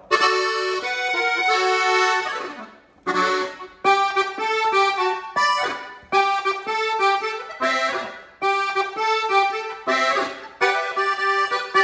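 Dino Baffetti diatonic button accordion tuned in E (Mi mayor) being played: short phrases of notes and chords with brief pauses between them, as the new instrument is tried out.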